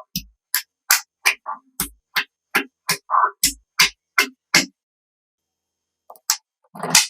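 Percussive background music with a steady beat of sharp clicks, about three a second, that stops about two-thirds of the way in. After a short silence there are a few clicks and a louder crackling noise near the end.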